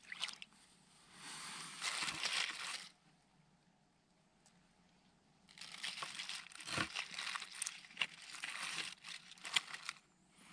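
Water poured from a plastic bag into an aluminium mess tin, splashing and sloshing for about two seconds. After a pause comes a longer stretch of rustling and sharp clicks.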